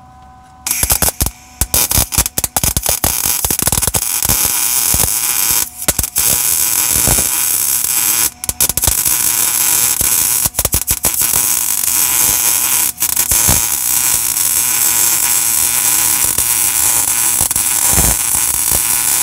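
MIG welder arc crackling steadily as a bead is laid on a rusted, oil-soaked steel truck frame, starting about a second in. It breaks off briefly a few times where the trigger is let go, and stutters on and off near the end.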